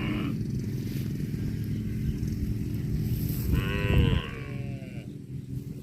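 A cow mooing: a long low moo that ends about four seconds in, with a higher call that bends in pitch near its end.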